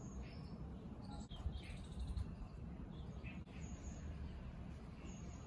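Scattered short bird chirps, high and thin, a dozen or so brief calls over a steady low background rumble.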